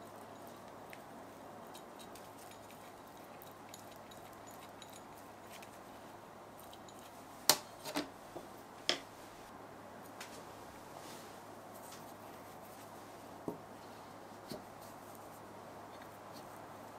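Quiet kitchen handling: a quick run of sharp clicks and taps of utensils about halfway through, one of them much louder, then two lighter taps a few seconds later.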